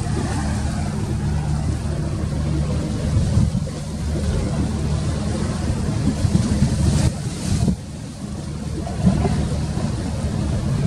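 An engine running steadily, with rushing wind or water noise over it.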